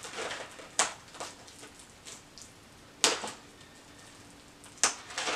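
Handling noise: three sharp taps or clicks, about a second in, at three seconds and near the end, with faint rustling between them.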